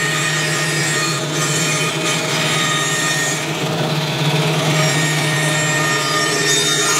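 Bandsaw running steadily with a constant motor hum as a board is fed past the blade against the fence, ripping off a thin strip of wood.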